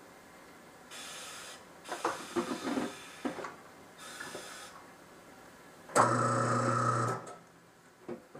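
A few short hisses and some light knocks, then a tire changing machine's electric motor hums loudly for about a second near the end, turning the wheel as the tire is worked onto the rim.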